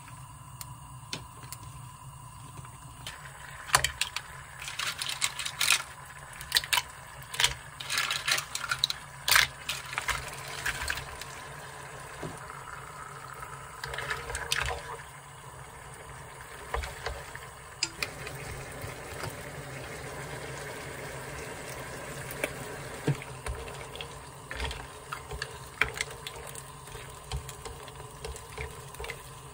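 Tomato sauce simmering in a frying pan while mussels go in, their shells clattering against the pan and each other in a run of sharp clicks during the first third. Later come a short pour of liquid and scattered clacks of wooden chopsticks stirring the pasta against the pan.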